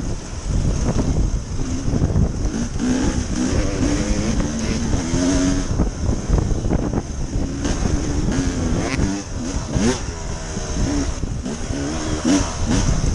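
2014 Husqvarna TE300's two-stroke engine revving up and down as the dirt bike is ridden, its note climbing and dropping again and again, with wind buffeting the microphone.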